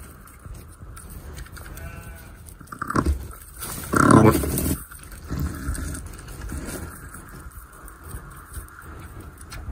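A sheep bleating in a straw-bedded lambing stall: a few calls, a soft one about two seconds in and the loudest about four seconds in.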